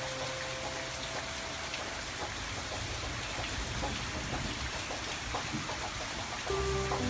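Steady rain with scattered pattering drops, as in an ambient rain-and-piano background track. Held piano-like notes fade out in the first second or two, and new notes begin near the end.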